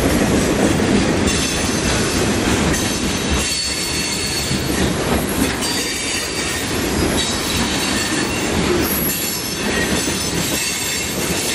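Freight cars, boxcars and then tank cars, rolling past close by on steel wheels and rails, with wheels squealing in thin, steady high tones over the running noise.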